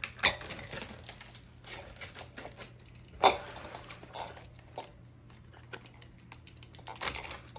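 Plastic shrink wrap rustling and crinkling as it is cut open with a utility knife, with scattered small clicks and a sharp knock about three seconds in.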